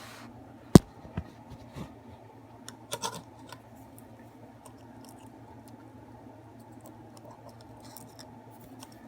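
Small metal tool and valve-spring parts (spring, retainer and keepers of a Yamaha YZ450F cylinder head) being handled while the keepers are fitted by hand: one sharp metallic click about a second in, then lighter scattered ticks and scrapes over a low steady hum.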